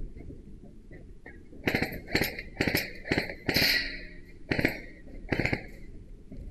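Several short bursts of airsoft rifle fire, rapid clicking volleys of a fraction of a second each, beginning about a second and a half in and repeating every half second or so.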